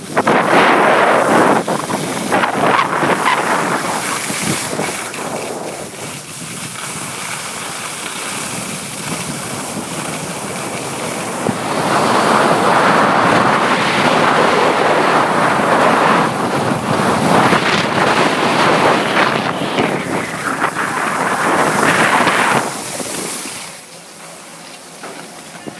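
Skis hissing and scraping over groomed snow on a downhill run, mixed with wind rushing over the microphone. It surges loudest in two long stretches and dies down near the end as the skiing stops.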